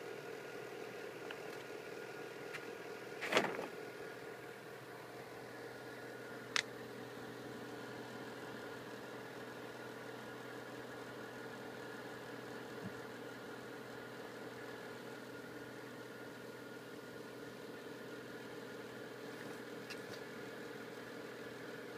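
A steady machine hum made of several held tones, broken by a short rustle of a paper bag about three seconds in and a sharp click a few seconds later.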